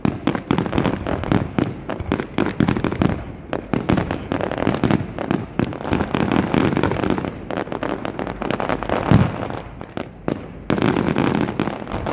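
Fireworks display: a rapid, near-continuous run of shell bursts, bangs and crackling, with one sharp loud bang about nine seconds in.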